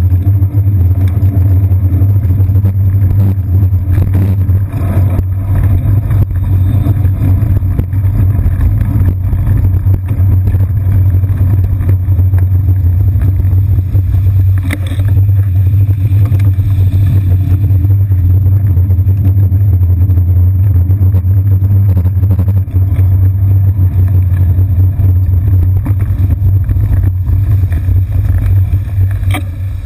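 Steady low rumble of road vibration and wind picked up by a GoPro Hero 2 mounted on a bicycle seat post as the bike rolls over city pavement, with street traffic of taxis and buses underneath.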